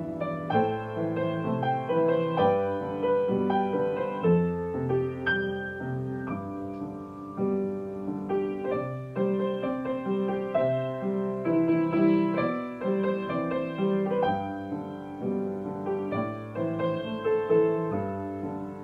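Solo grand piano playing a pop song arrangement: chords and a melody over sustained bass notes.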